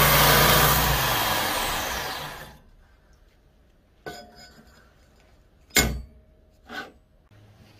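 Belt grinder grinding a steel knife blank, then the motor is switched off and the noise dies away over a second or two. After that come three sharp knocks of the steel blank being handled and laid on the grinder's table, the middle one the loudest.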